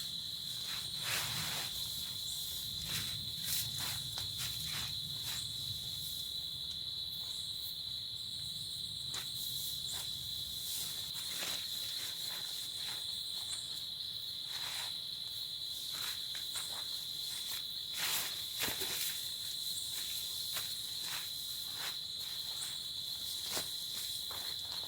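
Insects trilling steadily on one high pitch, with scattered light taps and knocks throughout.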